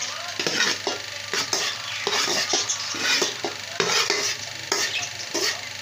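A utensil scraping and knocking against a steel bowl as boiled rice is scooped and spread over the chicken in a steel pot, in irregular strokes about once or twice a second. This is the layering of rice for a biryani before it goes on dum.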